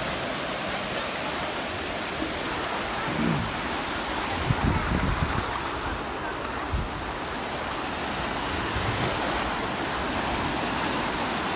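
Ocean surf washing steadily onto the beach, with a few short low thumps in the middle.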